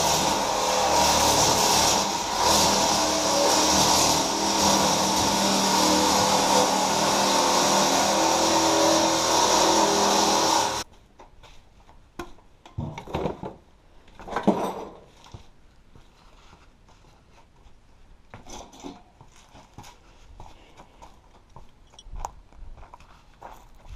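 Handheld electric power tool running on steel, a steady motor whine under a strong metallic hiss, which cuts off abruptly about eleven seconds in. Faint scattered knocks and clicks follow.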